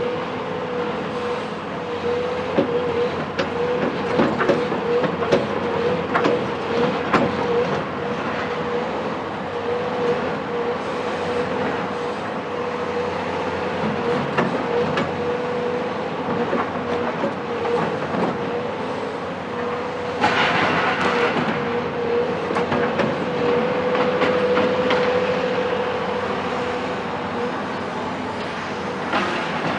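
Cat 374 demolition excavator with its Cat C15 diesel working steadily under a high steady whine, with many sharp clanks and knocks. A burst of hissing noise comes about twenty seconds in and lasts a couple of seconds.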